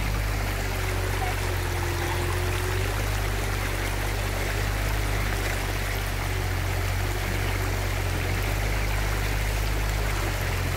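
A shallow, rocky river, swollen and muddy after rain, rushes steadily over stones. A steady low rumble runs underneath.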